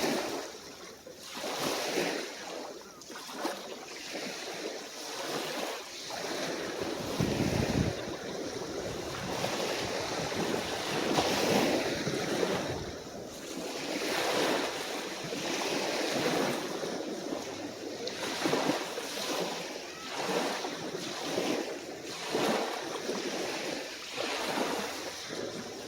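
Calm waves washing onto the shore, swelling and falling every second or two. About seven seconds in there is a brief low rumble, like a gust of wind on the microphone.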